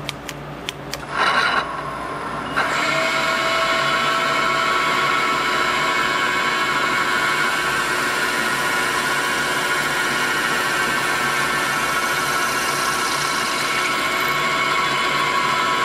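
A few clicks, then about two and a half seconds in a CNC mill's spindle comes up and runs steadily with a whine of several steady tones. A twist drill bores a hole in a spring clamp under a hiss of mist coolant.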